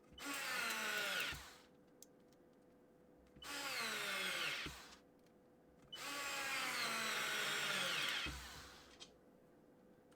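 4-volt Parkside PASS 4 A1 cordless electric screwdriver driving screws, three runs with short pauses between. The motor whine falls in pitch during each run, the longest run near the end.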